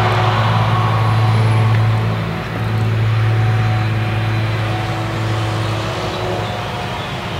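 Claas Jaguar 970 forage harvester chopping triticale for whole-crop silage, with the tractor hauling its trailer alongside: a steady, deep engine drone over a rushing noise from the chopper and crop flow. The level dips briefly about two and a half seconds in.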